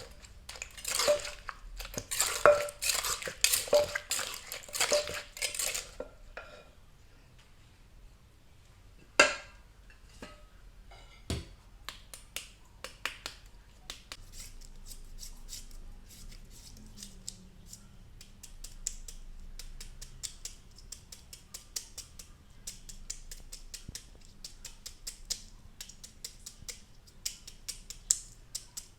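Pestle pounding in a mortar, regular strikes about one and a half a second for the first six seconds, mashing chillies, tomato, lime and seasonings so the tomato juice runs out. Then two single knocks and a long run of light rapid clicks and taps.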